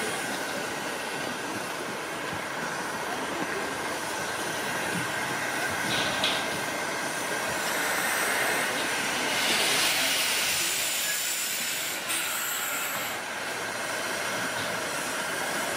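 Rhaetian Railway G 4/5 steam locomotive No. 108 "Engiadina" hissing steam steadily while shunting, with the hiss swelling for a couple of seconds about two-thirds of the way through and a few short clicks.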